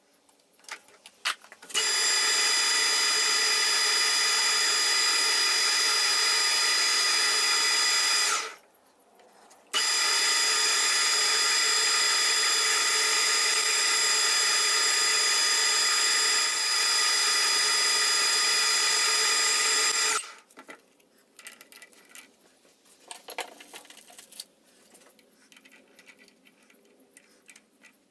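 Small metal lathe running: a steady machine whine with several constant tones as the spindle turns and a tailstock drill bores into the end of a thin metal bar in the chuck. It starts after a few clicks of the chuck key, stops about eight seconds in, starts again a second and a half later, and stops around twenty seconds in, followed by light metallic handling clicks.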